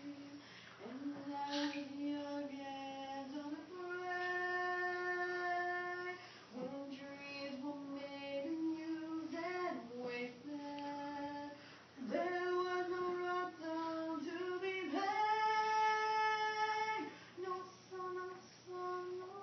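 A female voice singing a slow melody solo, holding long notes.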